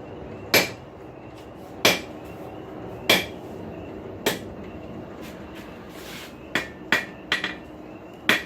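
Blacksmith's hammer striking hot rasp steel laid over a hot-cut hardy in the anvil, cutting the split of the snake's tongue. Four heavy blows about a second apart ring off the anvil, followed near the end by a quicker run of lighter taps.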